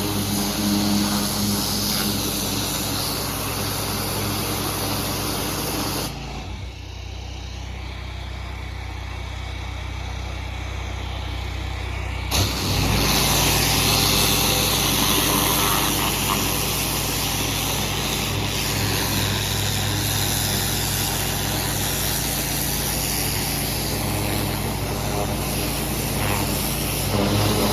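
Engine-driven pressure washer running with the hiss of the water spray. About six seconds in the spray stops and the engine runs on alone, then the spray starts again with a sharp onset about twelve seconds in.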